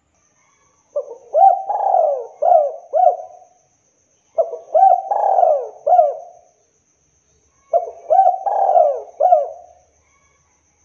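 Spotted dove (tekukur) cooing: three phrases of several quick rising-and-falling coos each, about three and a half seconds apart.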